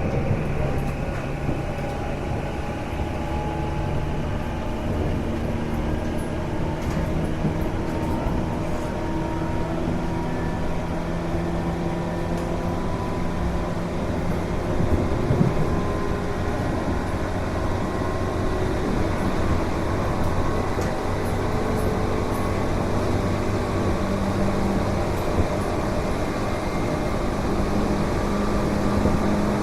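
Tobu 8000 series resistor-control electric train running, its traction motors giving a light jet-like whine that rises slowly in pitch as the train gathers speed, over steady wheel and rail rumble. An abnormal noise sounds constantly, which the recordist suspects comes from a faulty switchboard.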